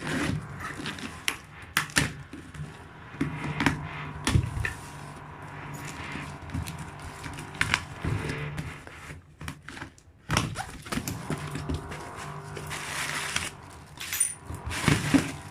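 A parcel box being opened and its packaging and items handled: scattered clicks, knocks and rustles over a steady low background hum.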